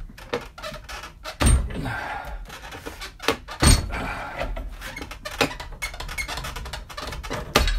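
Steel pry bar levering a seized tie rod ball stud out of an old steering arm clamped in a steel bench vise: repeated metal clicks, scrapes and clanks, with loud clanks about a second and a half in, near four seconds, and just before the end as the stud works loose.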